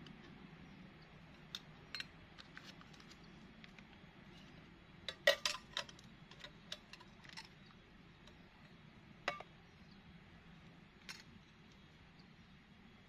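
Scattered light clicks and clinks of small hard objects knocking together, with a quick cluster of knocks about five seconds in, over a faint steady background noise.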